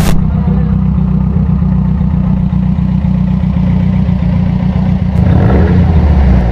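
Off-road race vehicle's engine running with a steady low drone, then revving up and down near the end.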